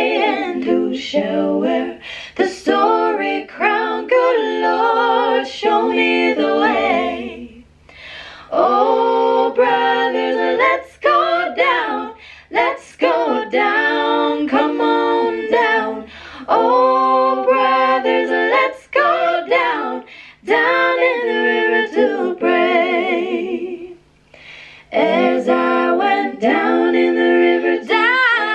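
A woman singing solo into a handheld microphone, in long held phrases with vibrato and short breaks between them.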